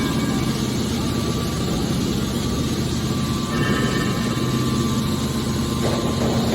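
Hydraulic power unit of a scrap metal push-out baler running with a steady, even hum, with a short rougher noise near the end.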